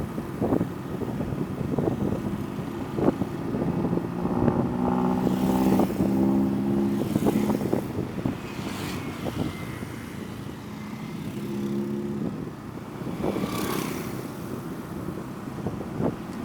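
Trail motorcycle engine running and revving in spells, mixed with scattered knocks and clatter.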